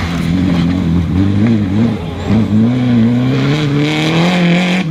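Citroën DS3 rally car's engine at high revs, pitch wavering, dipping briefly near the middle, then climbing steadily as it accelerates.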